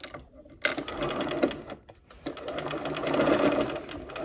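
Sewing machine stitching a curved quilt seam in short runs: it starts about half a second in, stops briefly near the middle, then runs again, louder toward the end.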